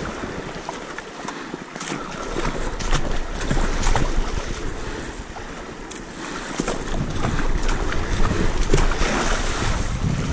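Water rushing and splashing along a surfski's hull as it runs through choppy sea, loudness swelling and ebbing with the waves, mixed with wind buffeting the microphone.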